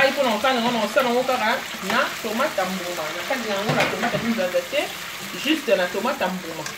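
Sliced tomatoes and yellow bell pepper sizzling as they are scraped with a spatula into hot oil in a pot. A person's voice is heard over the frying throughout.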